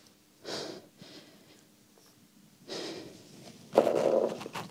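A performer's breaths and clothing rustle as she moves and crouches on a bare stage. The loudest sound comes near the end: a rustle and scrape as she takes hold of a small wooden bench on the floor.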